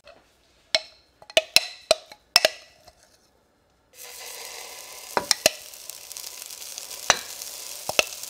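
Sharp clicks and taps of a utensil against a frying pan, then from about four seconds in a steady sizzle of pancakes frying in the pan, with a few more sharp taps.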